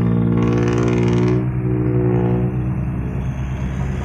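Diesel dump truck engine running hard with a loud exhaust, steady and throaty. A rush of hiss comes in about half a second in and fades after about a second, and the engine eases slightly after that.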